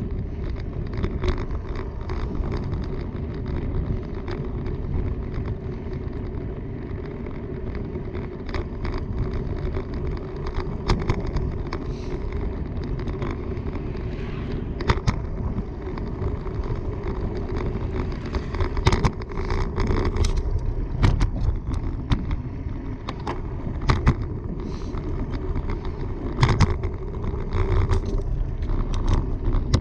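Bicycle riding at speed on a paved trail: steady rumble and hum of the tyres rolling, with frequent short clicks and rattles from bumps, more of them in the second half.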